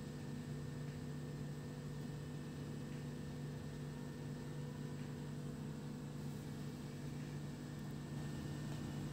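Steady low hum over a faint even hiss: room noise from a running appliance or fan, getting slightly louder about eight seconds in.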